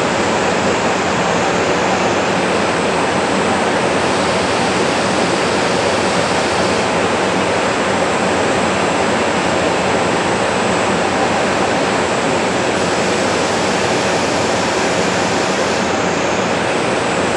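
Limited express diesel railcar standing with its engines idling, a loud, steady rushing noise that does not change.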